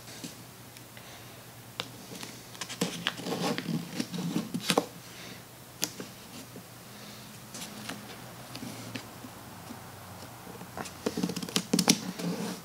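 Blue painter's tape being handled and rubbed down by fingers over a veneer patch: crinkly rustling with sharp clicks, in two busy spells about three seconds in and again near the end.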